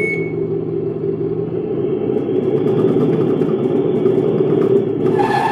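Simulated V8 truck engine sound from the RC Scania model's onboard sound module (speaker), idling steadily. Near the end a short hiss, the module's air-brake sound.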